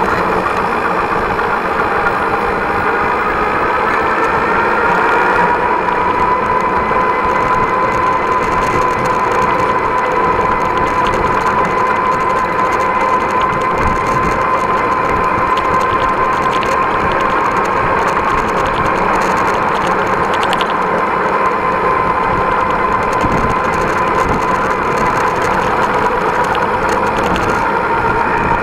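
Direct-drive electric hub motor whining while riding. The whine rises in pitch over the first few seconds as it picks up speed, then holds steady, over tyre and road noise.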